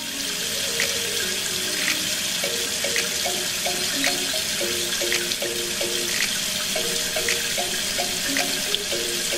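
Thin stream of water from a toy tractor's mini water pump and hose, splashing steadily onto sand. It starts suddenly and holds even.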